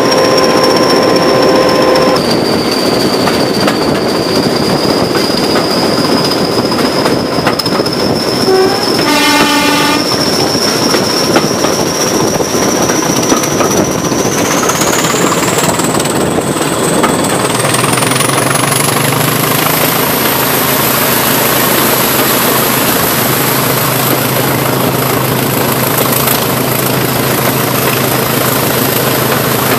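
Class 20 locomotive D8188's English Electric 8SVT diesel working under power, its turbocharger whistle climbing steadily in pitch over the second half as the engine picks up. A short horn blast about a third of the way in.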